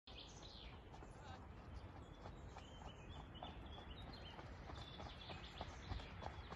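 Hoofbeats of a horse wearing hoof boots on a gravel track, faint at first and growing louder as it approaches. Birds chirp now and then.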